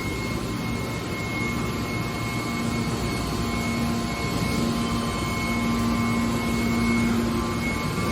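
Hydraulic car body baler running: a steady machine noise with a hum that grows louder about halfway through.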